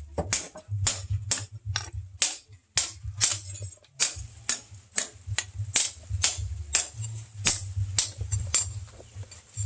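Sledgehammer blows on a red-hot steel bar lying on an anvil, forging it: sharp metallic clanks with a brief ring, about two to three a second in a steady rhythm, over a steady low hum.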